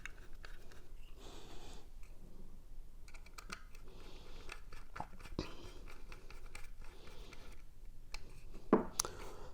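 Light metallic clicks and scrapes of a small Torx screwdriver driving the four mounting screws into the side of a Samsung SSD, with a louder knock near the end.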